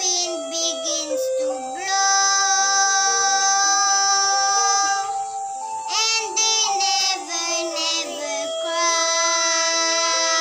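Young girl singing a song, holding several long notes.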